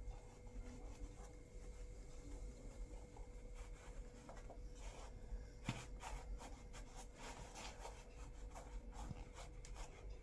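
Faint scratching and rubbing as orange fabric is pressed and tucked into a cardboard pen stand with a thin metal tool and fingers. Small clicks and scrapes come more often from about halfway through.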